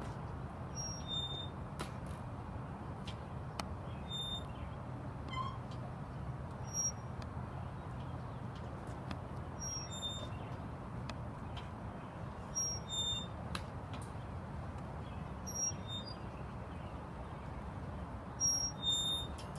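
Playground swings squeaking as they swing back and forth: a short, high squeak about every three seconds, with a few faint clicks of the chains. Under it runs a steady low rumble.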